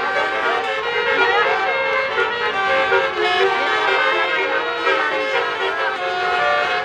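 Melodic music at full volume, with held notes and sliding, ornamented melody lines.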